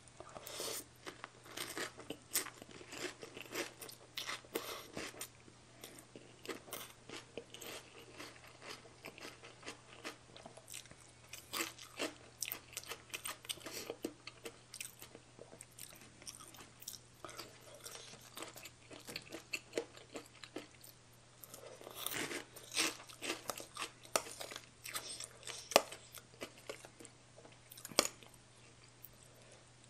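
A person chewing mouthfuls of spicy baby cuttlefish salad with rice noodles and raw vegetables: irregular wet chewing and biting sounds coming in clusters. Near the end there are a couple of single sharp clicks as a metal spoon touches the plate.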